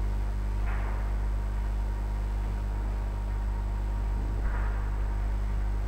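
Steady low electrical hum on the recording, with two faint brief rustles about a second in and near the end.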